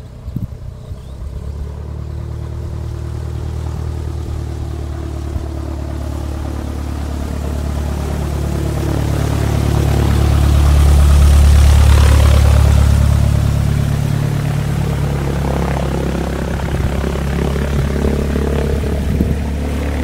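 Cessna 172 light aircraft's propeller engine running. It grows louder to a peak about halfway through, then eases off somewhat.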